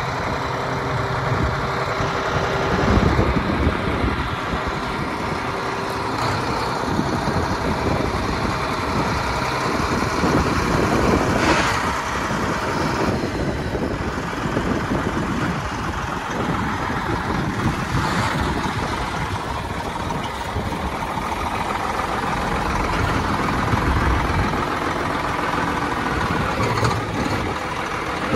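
Case 4490 four-wheel-drive tractor's turbocharged six-cylinder diesel idling steadily.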